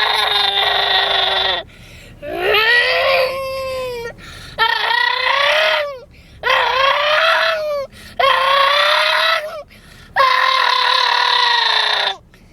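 A person's voice making a series of long, wailing, pitched blasts, six of them about one and a half seconds each with short gaps, most sliding up in pitch at the start: a vocal imitation of a Peterbilt truck's jake brake.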